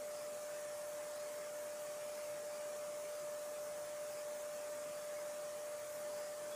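Plumbing noise: a steady, harmonic, high-pitched tone ringing through the building's water pipes over a faint hiss, which the resident takes for a valve vibrating, perhaps leaking.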